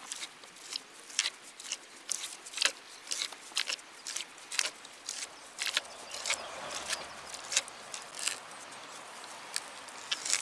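T-handled hand auger being twisted into a mossy log, the bit crunching and creaking into the wood in irregular sharp strokes, a few each second.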